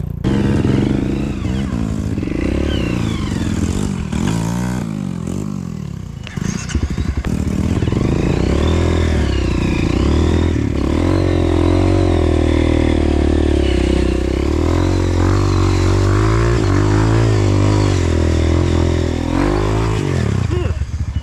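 Honda CRF150L trail bike's single-cylinder four-stroke engine under way, its pitch rising and falling with the throttle, with a brief drop about six seconds in before it picks up again.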